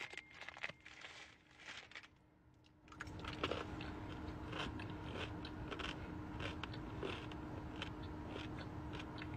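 Small clicks and crackles close to the microphone; about three seconds in, a steady low hum starts inside the car and runs on under continuing faint ticks.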